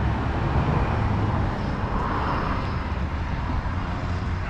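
Wind buffeting the microphone outdoors: a steady, low, rumbling noise that eases slightly towards the end.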